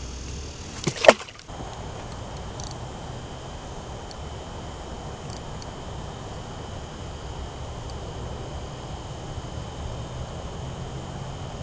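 Two sharp knocks about a second in, the second one loud, then a steady low outdoor hiss with a few faint ticks.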